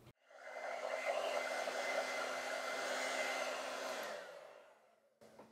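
Handheld hair dryer blowing, drying wet acrylic paint: a steady rush of air with a faint motor hum. It switches on just after the start and runs down to a stop about four and a half seconds in.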